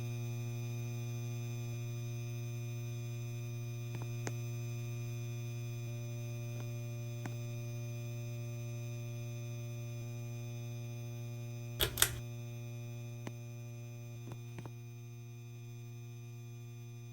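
Electric fan motor humming steadily, one low tone with a stack of higher tones above it, slowly growing quieter. A few short clicks, the loudest a double click about twelve seconds in.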